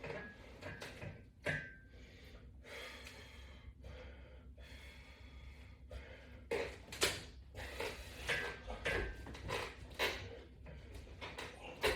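A person breathing hard in short, quick puffs while doing sit-ups, about two breaths a second in the second half.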